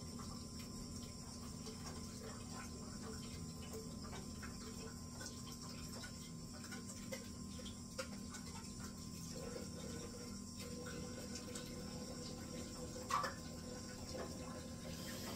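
Quiet kitchen room tone with a steady low hum, small faint clicks of handling at the counter, and one sharper knock about thirteen seconds in.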